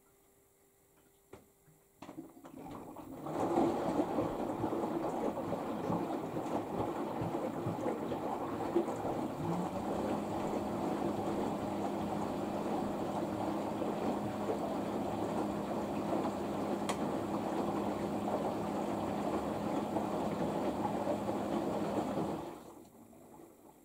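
LG AiDD Steam front-loading washing machine taking in water during its final rinse: a steady rush of water begins about two seconds in and stops shortly before the end. A low steady hum joins about halfway through.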